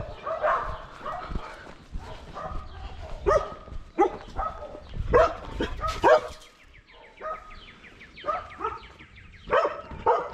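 Dogs barking on and off, with a short lull a little past the middle.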